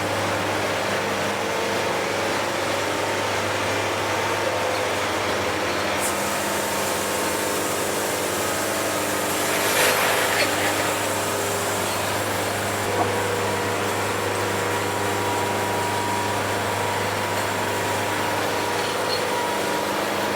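Wood-Mizer portable band sawmill running steadily as its band blade saws the last board from a log, over a constant low hum. A brighter hiss sets in about six seconds in, and there is a short louder rasp near ten seconds.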